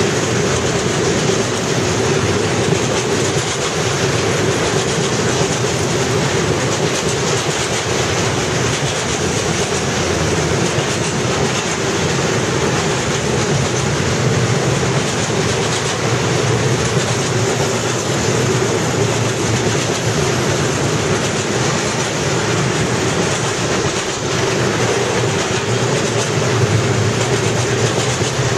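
Freight train tank wagons rolling past close by, their wheels running steadily on the rails.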